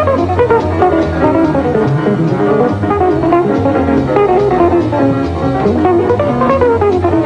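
Instrumental music with guitar and bass over a steady beat, with runs of notes falling in pitch several times.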